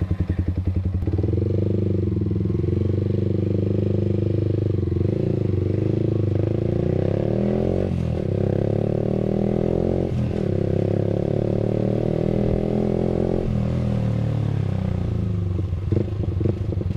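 Yamaha R15 V3's 155 cc single-cylinder engine running through an aftermarket R9 H2 series exhaust with its dB killer removed, as the motorcycle is ridden. The note is steady, shifting with the throttle a few times.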